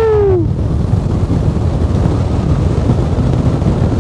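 Airflow rushing over the microphone of an open-cockpit glider in flight: a steady, heavy wind rumble. A voice trails off on a long falling note about half a second in.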